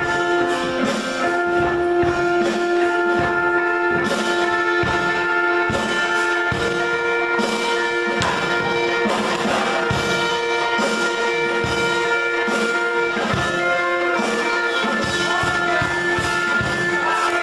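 Music with a steady drum beat and long held pitched notes.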